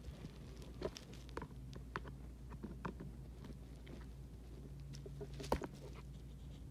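Scattered faint clicks and taps of a plastic DVD case and disc being handled, with one sharper click about five and a half seconds in, over a low steady hum.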